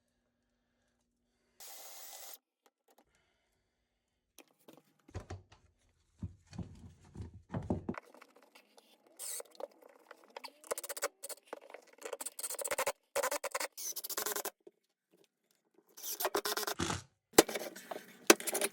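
Scraping and rubbing noises from hand work on a toilet flange, coming in short choppy stretches broken by sudden dead silences.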